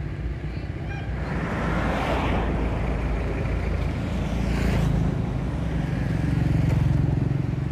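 Road vehicle noise: a steady low engine rumble with swells of passing-traffic noise about two seconds in and again just before five seconds, and the engine sound growing louder near the end.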